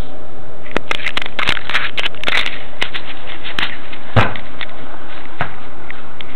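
Crackling, rustling clicks from a concealed camera's microphone rubbing as the camera is moved and re-aimed, with one heavier thump about four seconds in. Under it runs the steady hum of a moving metro car.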